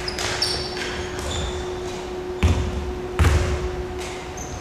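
Basketball bouncing on a hardwood gym floor, with two loud bounces about two and a half and three seconds in, and a few short high squeaks of shoes on the floor near the start. A faint steady hum runs underneath.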